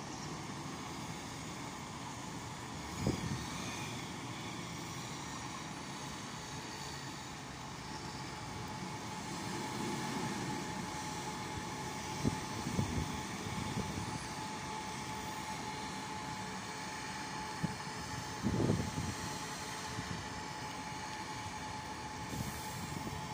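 City road traffic on wet roads: double-decker buses and cars moving through a junction in a steady wash of engine and tyre noise. A thin steady hum comes in about a third of the way through, and a few short low thumps stand out now and then.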